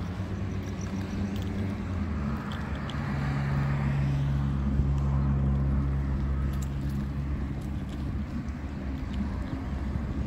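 A motor vehicle's low, steady engine hum with road noise. It grows louder over the first few seconds, peaks in the middle and then eases off, like a vehicle passing on a nearby street.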